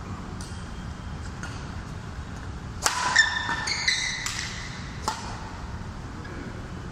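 A badminton rally: sharp racket-on-shuttlecock hits about a second apart, the loudest about three seconds in. Short high squeaks of shoes on the court floor cluster around the middle of the rally.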